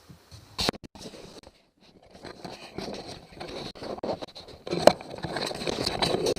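Hands working with tools and parts: a sharp click, then irregular scraping, rustling and small knocks.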